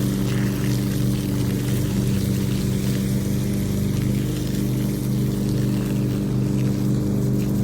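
A motor running at a steady, unchanging hum, with water pouring.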